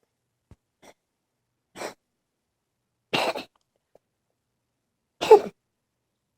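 A sick Sphynx cat coughing: a faint short cough about a second in, then three short coughs roughly every second and a half, the last the loudest.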